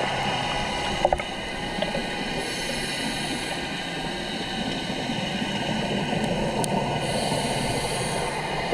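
Underwater noise picked up by a scuba diver's camera: a steady hiss and hum, with a few brief clicks about a second in.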